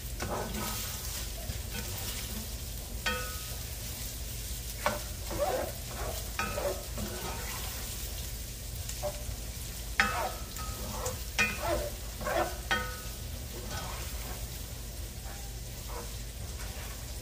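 Ground sausage with pats of butter melting in, sizzling in a stainless steel skillet while a spoon stirs it, knocking and scraping against the pan so that it briefly rings. The knocks come in a few clusters, the loudest about ten seconds in.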